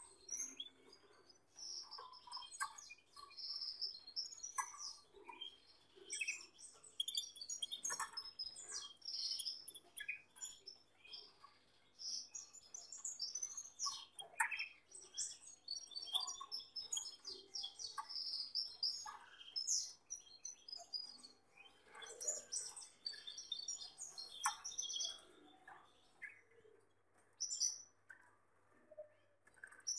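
Domestic canaries chirping and singing in bursts of quick high trills and calls, separated by short pauses, with a few sharp ticks among them. A faint steady low hum runs underneath.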